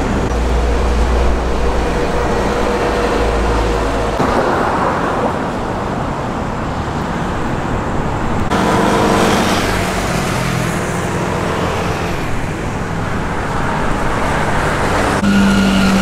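City road traffic: cars and other vehicles driving past, a continuous wash of engine hum and tyre noise. The sound changes abruptly about four and eight seconds in.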